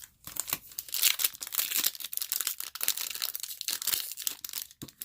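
Plastic wrapper of a Donruss baseball card pack crinkling and tearing as it is opened, a dense crackle of many small sharp ticks.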